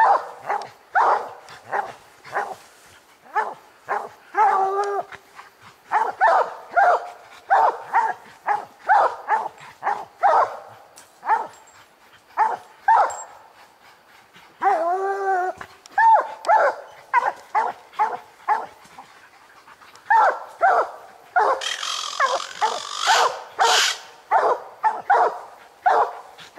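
Coonhounds tree-barking at a treed raccoon: a steady run of chop barks about once or twice a second, with a couple of long drawn-out bawls, about four seconds in and again near the middle.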